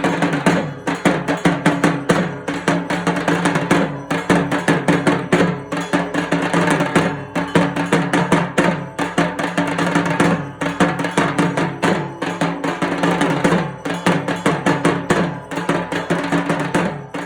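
Dhak, the large Bengali barrel drum, beaten fast with thin sticks in a dense, driving rhythm, with a few brief breaks in the pattern.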